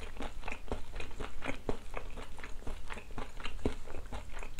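Close-miked chewing of a mouthful of bossam, boiled pork with kimchi: irregular wet smacks and crunches, several a second.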